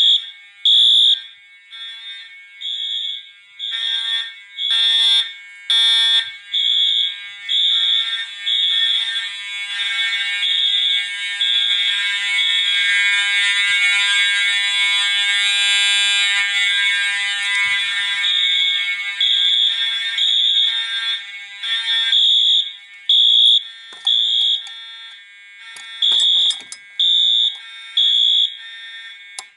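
Fire alarm horns sounding in alarm after a pull station is activated, with a Wheelock MT horn set to the code-3 (temporal) pattern among them. The horns give loud, high, repeating pulsed blasts that overlap into a near-continuous sound through the middle, then cut off right at the end.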